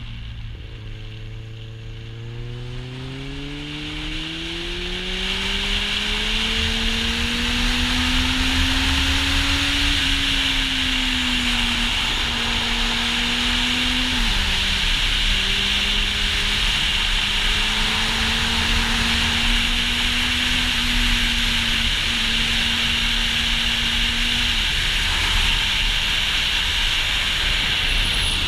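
Kawasaki Z800e inline-four engine through an Akrapovic exhaust, accelerating with the revs climbing over the first ten seconds. About halfway through the pitch drops at a gear change, and the engine then runs fairly steady. Wind noise on the helmet or bike-mounted microphone builds up as speed rises and then dominates as a loud steady hiss.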